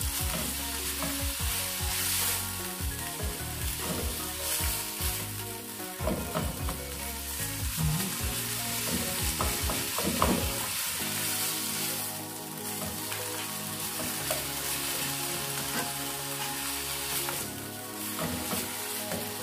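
Minced pork with tomatoes and onions sizzling in a nonstick wok, stirred and scraped with a plastic slotted turner. The scraping strokes come thick for the first half and grow sparser later.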